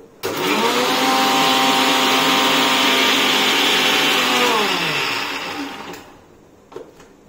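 Electric kitchen mixer grinder running at full speed, grinding chopped amla for juice: a steady high whine that starts abruptly. It holds for about four and a half seconds, then the motor is switched off and winds down, its pitch falling away over about a second.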